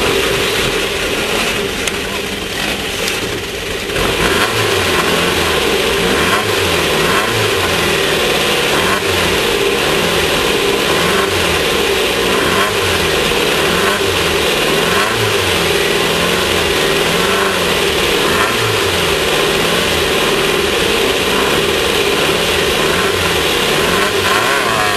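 Class 1600 off-road race car's air-cooled 1600 cc VW engine running hard, its revs rising and falling again and again, under a steady noisy rush; the level drops briefly about two seconds in.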